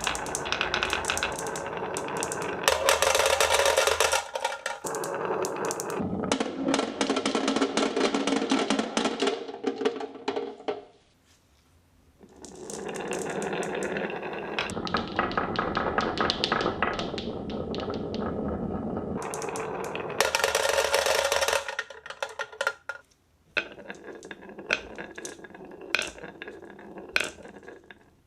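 Many marbles rolling and clattering down plastic rain-gutter and wooden-rail tracks, in dense waves of rapid clicks and rumbling. There is a brief pause about halfway through, and near the end the sound thins to scattered single clicks as the last marbles run out.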